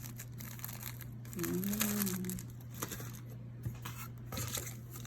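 Crinkling plastic snack wrappers as packaged snacks are handled and set down, with a few light taps. A short low hum sounds about a second and a half in, over a steady low hum underneath.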